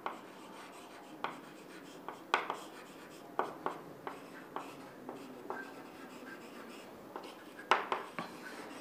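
Chalk writing on a chalkboard: an irregular string of short taps and scrapes as letters are written, two sharper taps about a quarter of the way in and near the end.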